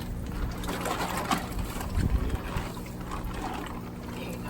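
Steady electric hum from a water pump, with water sloshing and splashing as koi are handled in pond water, and a heavier low thump about two seconds in.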